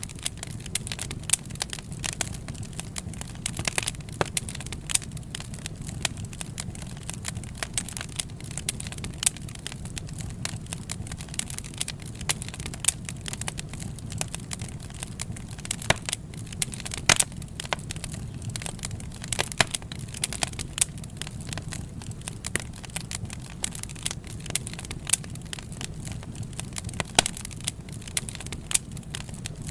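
Wood fire crackling: irregular sharp pops and snaps, a few much louder than the rest, over a steady low rumble of the burning logs.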